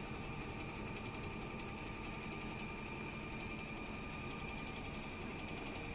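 Richpeace heating-wire sewing machine stitching steadily over grid fabric: a fast, even needle rhythm with a steady high whine.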